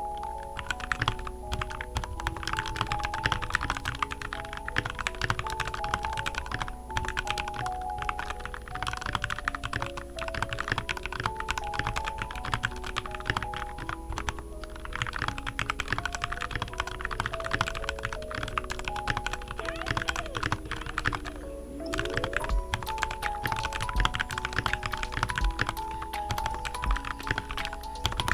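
Fast, continuous typing on a Redragon K617 Fizz mechanical keyboard with lubed stock red linear switches, foam and tape mods, and lubed stabilizers. The typing pauses briefly about three-quarters of the way through. Background music with a light mallet-like melody plays underneath.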